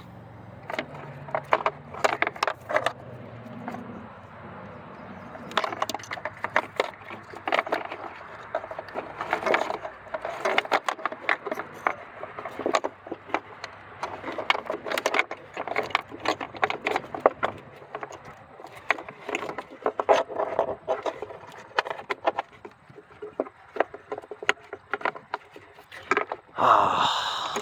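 Hands working in a car's engine bay: irregular clicks, knocks and scrapes of wiring-harness connectors, bolts and metal parts being handled and fitted.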